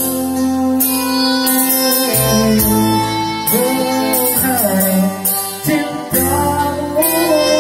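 Live band music: an electronic keyboard and an electric guitar, with a man singing a slow song into a microphone.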